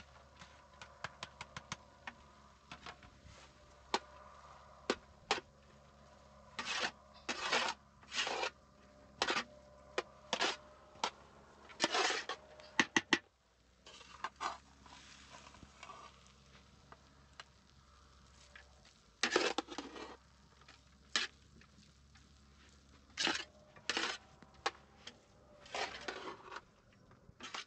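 Irregular sharp clicks and knocks, mixed with short scraping or rustling strokes of about half a second, typical of handwork with household utensils.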